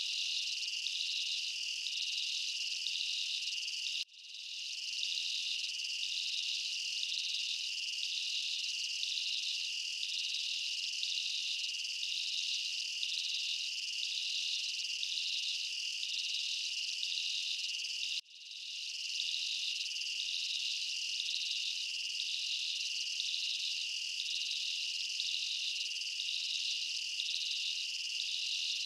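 A steady chorus of crickets chirping in a high, evenly pulsing rhythm. It cuts out briefly twice and fades back up each time.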